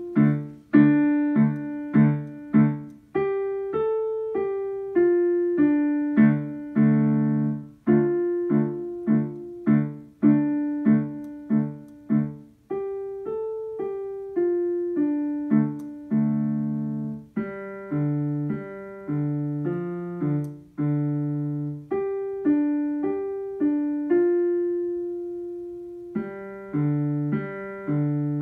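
A digital piano played by a young child: a slow, simple melody over repeated low chords, each note struck and fading. A note is held long near the end.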